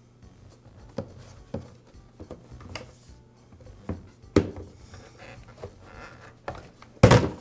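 Handling noise from a backpack blower's plastic fuel tank and fuel lines being worked loose from the frame: scattered light knocks, clicks and rubs, then a louder clatter near the end.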